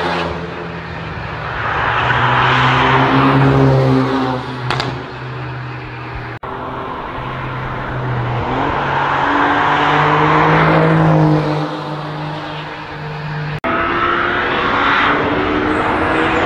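Cars driving hard through a racetrack corner one after another, each engine note rising and falling as the car approaches and passes, over tyre and road noise. The sound changes abruptly twice as it cuts from one car to the next.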